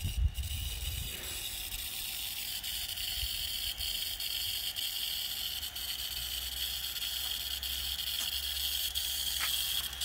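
Fine water spray hissing steadily onto the leaves of a shrub, over a low rumble.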